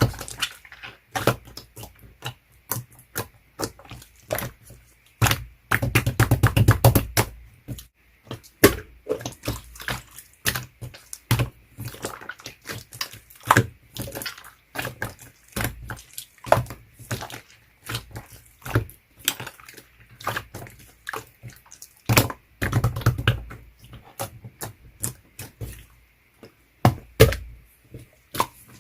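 Clear slime being squished and pressed by hand: a steady run of wet clicks and pops, thickening into denser crackling bursts about a quarter of the way in and again about three quarters of the way in.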